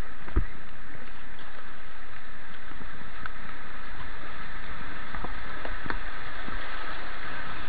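Grade 1 white-water rapids rushing steadily around a kayak, heard close from a helmet-mounted action camera. A single low thump comes about half a second in, with a few faint knocks later.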